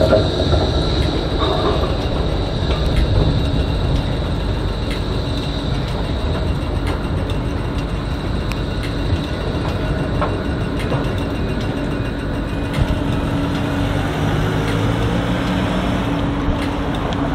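Bombardier E-class tram rolling slowly over curved track and points, a steady rumble of wheels on rail with scattered small clicks. A high steady tone fades out over the first few seconds.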